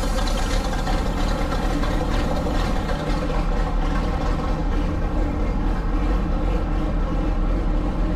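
Hercules YXC-2 six-cylinder gasoline engine of a 1928 Lombard Model T dump truck running steadily at an even speed.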